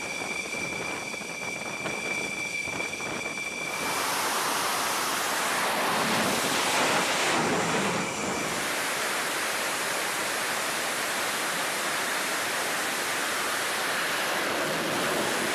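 Fighter jet engines running on a carrier flight deck. A high, steady whine with overtones for the first few seconds gives way, about four seconds in, to a loud, steady roar.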